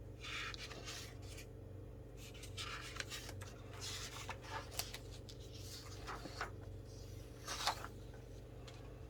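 Pen writing on paper: irregular scratchy strokes with short pauses between them, the sharpest one near the end, over a low steady electrical hum.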